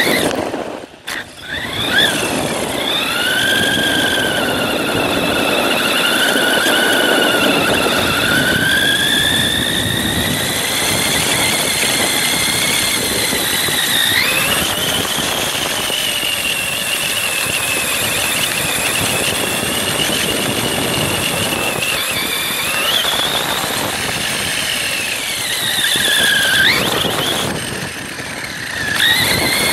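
Motor and drivetrain of a 1/10-scale Redcat monster truck whining as it drives, the pitch sliding up and down with the throttle, over a rough rumble of tyres on gravel and grass. The whine cuts out briefly about a second in and again near the end.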